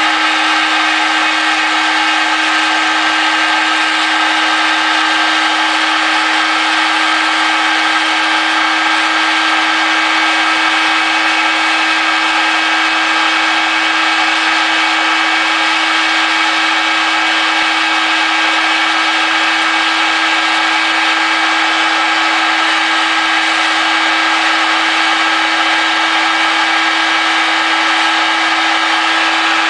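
RotoZip rotary tool on a flexible-shaft extension running at steady high speed, its green grinding stone taking the casting roughness off the aluminium cylinder head of a Predator 212 engine during porting. A steady whine over a grinding hiss, unbroken throughout.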